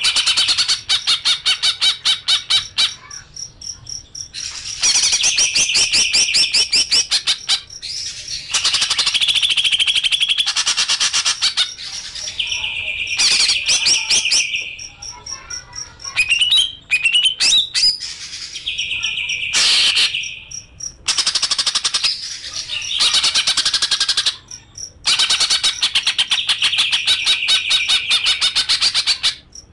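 Songbird singing in repeated bursts of fast, high-pitched trills and sharp chirps, each burst lasting a few seconds with short pauses between.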